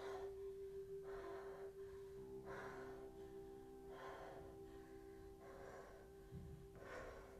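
Quiet, shaky breaths, about one every second or so, over a held drone note that is joined by lower notes a couple of seconds in.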